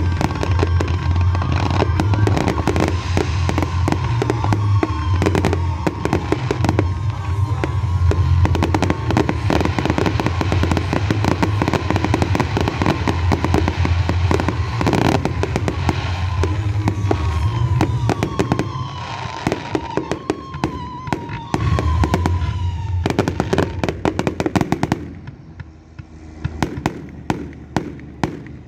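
Fireworks display: a dense barrage of crackling and bangs over a deep rumble. It thins out near the end to a few scattered single bangs.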